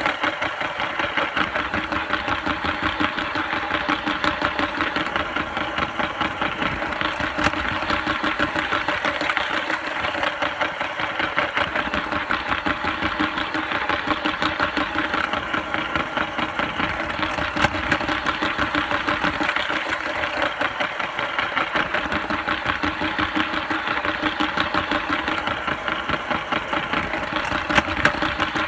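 Lego train's small electric motor whirring steadily, with a fast fluttering rattle from the gears and wheels on the plastic track. A few sharp clicks come about ten seconds apart.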